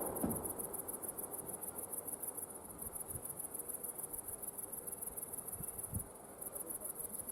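Crickets chirping in a steady, rapid high-pitched pulse, with a short pause about six seconds in. A low rumble dies away at the very start.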